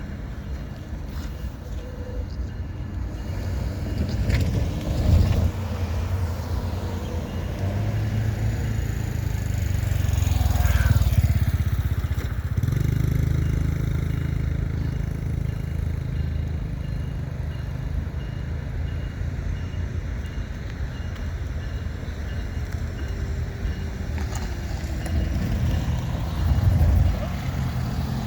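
Diesel locomotive engine running with a deep, steady rumble that swells about ten seconds in and eases off again.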